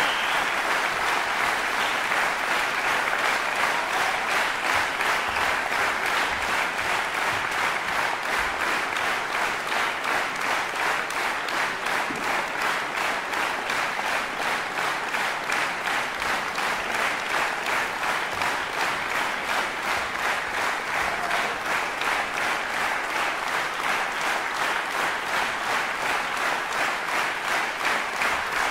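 Concert hall audience applauding. About halfway through, the clapping settles into a steady rhythm in unison, a few claps a second, calling the pianist back for an encore.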